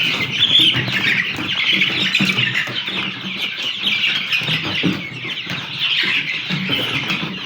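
A flock of young chickens, Noilers and broilers about four weeks old, peeping and chirping continuously.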